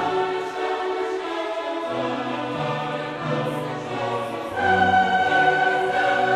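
Choral music with orchestra: a choir sings long held notes, swelling louder about four and a half seconds in on a high sustained note.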